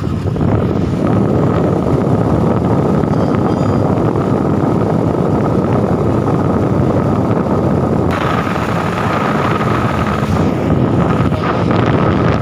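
Truck diesel engine running steadily, heard from inside the cab, with a steady whine over the engine noise; about eight seconds in a hiss comes in higher up.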